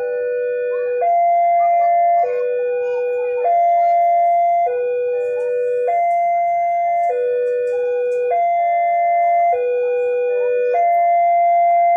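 Railway level-crossing warning bell sounding: an electronic two-tone signal that alternates evenly between a low note and a higher note, switching about every 1.2 seconds.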